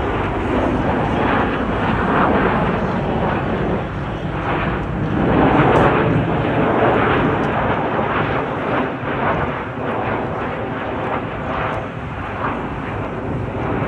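Jet engine roar from Blue Angels F/A-18 Super Hornets flying their demonstration. The roar swells to its loudest about halfway through, then eases a little.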